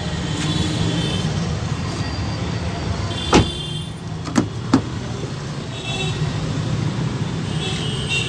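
A Maruti Suzuki Swift Dzire's car door is shut with one sharp thump a little over three seconds in. About a second later come two quick clicks of a door handle and latch as the rear door is opened. A steady low rumble runs underneath.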